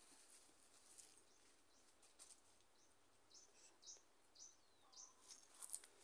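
Near silence with faint short high bird chirps, a quick run of about half a dozen in the second half, one sliding down in pitch.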